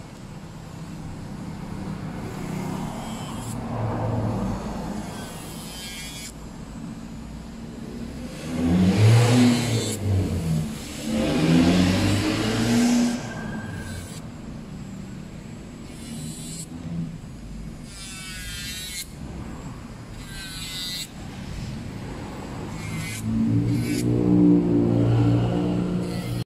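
Electric nail drill whirring as its sanding bit grinds down acrylic nails for removal. Its pitch and loudness shift as it bears on the nail, loudest from about nine to thirteen seconds in and again near the end.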